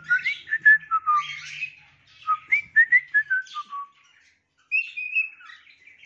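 Cockatiel whistling: a run of short gliding notes that mostly step downward, then a longer held note about five seconds in.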